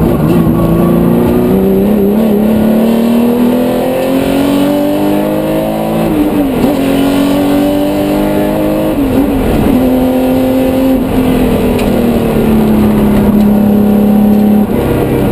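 Porsche 911 race car's 3.8-litre flat-six engine under hard acceleration, heard from inside the cockpit. The revs climb steadily for about six seconds, drop sharply and pick up again twice, hold steady, ease off slowly, and dip sharply once more at the end.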